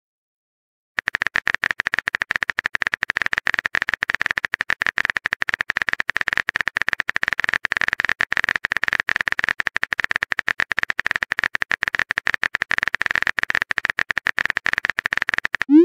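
Simulated smartphone keyboard typing: a rapid, even run of key-tap clicks that starts about a second in.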